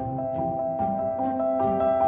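Background music: struck mallet-like notes, vibraphone or marimba, in a steady rhythm of about two to three notes a second over held tones.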